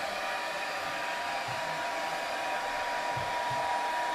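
Hair dryer running steadily, blowing air as artificial wind: a steady whine over a rushing of air.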